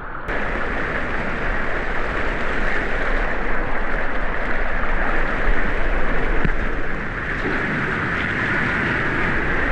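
Steady rush of water along a waterslide as a rider slides down it.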